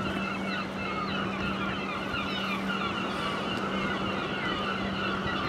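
A flock of birds calling in the distance, many short overlapping calls, over a steady low hum.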